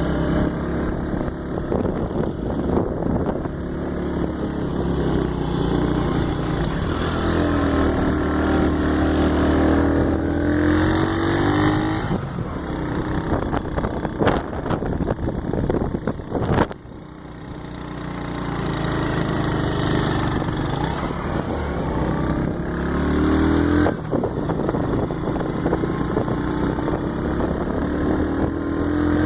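A vehicle engine running on the move, its pitch rising and falling as speed changes. Partway through there is a sharp click and a short sudden drop in level, then the engine sound builds back.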